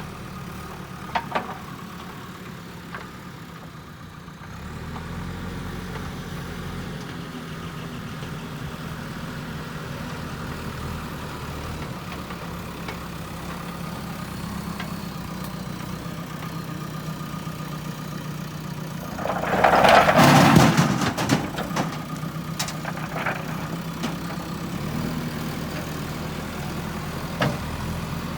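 JCB 3DX backhoe loader's diesel engine running steadily, picking up revs about four seconds in. About twenty seconds in comes a loud clattering crash lasting a second or two, stone tipped from the loader bucket into the tractor's trailer.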